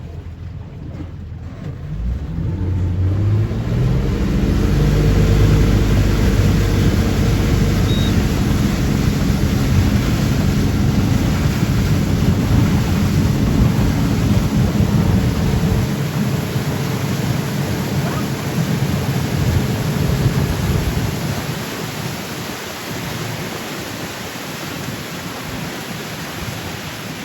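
Tour boat's motor speeding up about two seconds in, its pitch rising, then running steadily at speed under a heavy rush of wind and water. It grows quieter over the last few seconds.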